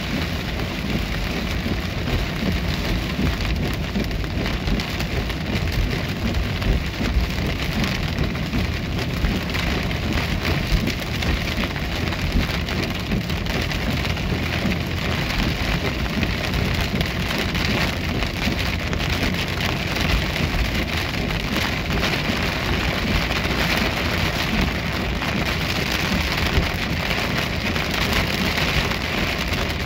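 Heavy rain falling steadily on a car's windshield and roof, heard from inside the moving car as a dense, even hiss of countless drops.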